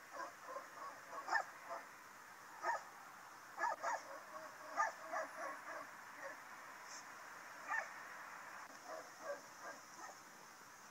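Two Rottweilers shut in a car, one muzzled and one with its snout taped shut, giving stifled barks in short, irregular bursts, heard through the car's closed windows.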